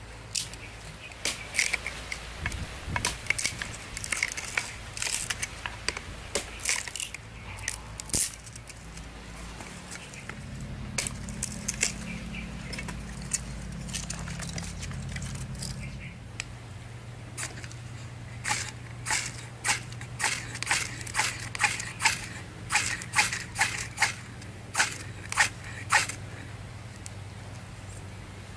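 Knife blade shaving thin curls off a dry wooden stick to make a feather stick: quick scraping strokes, one run at the start and another, about two strokes a second, in the second half after a quieter pause.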